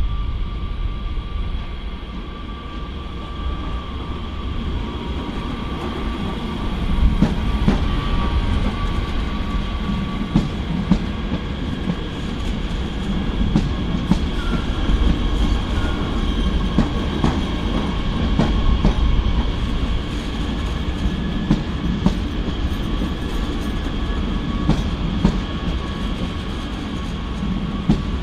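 National Express class 442 Bombardier Talent 2 electric multiple unit passing close by: a steady rumble of wheels on the track, with scattered sharp clicks as the wheels run over rail joints and points, and a faint steady high whine above it.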